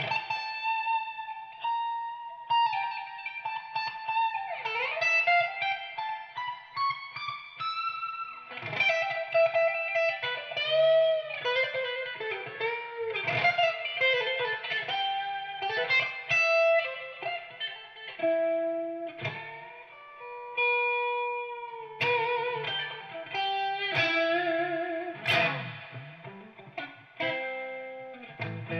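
Electric guitar played through a Zinky Velvet tube amp set for a mildly overdriven, Dumble-style breakup with a touch of spring reverb. It plays single-note lead lines with bends, vibrato on the held notes and a few quick runs.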